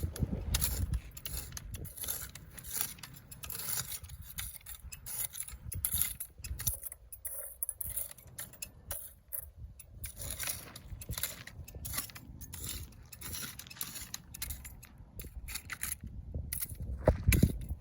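Dry weeds being pulled and cleared from gravelly ground: irregular scraping, crackling rustles and small clicks, with a louder scrape near the end.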